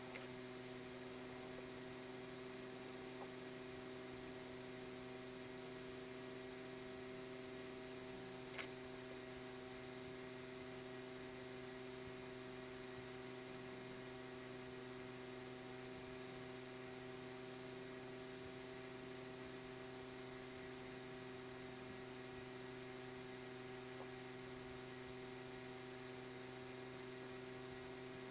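Steady electrical hum made of several even tones over a faint hiss, with a single short click about eight and a half seconds in.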